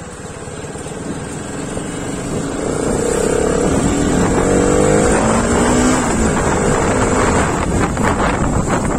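Motorcycle engine running under the rider as the bike accelerates, its note climbing in pitch and getting louder over the first few seconds, with wind rushing over the microphone.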